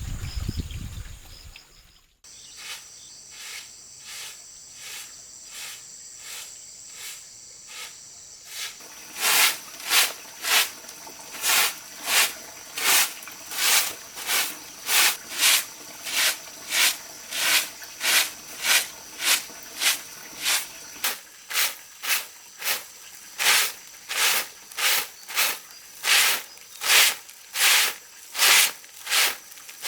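A hand tool working wood in steady, rhythmic rasping strokes, about one and a half a second. The strokes start faint and grow much louder about a third of the way in.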